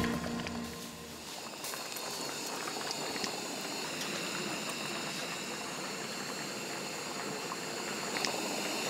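A pot of doenjang stew boiling, a steady bubbling.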